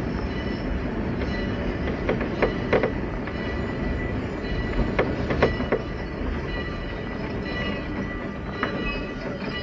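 Passenger train rolling along at a steady level: a continuous rumble with two clusters of three sharp knocks, about two and five seconds in, from wheels passing over rail joints.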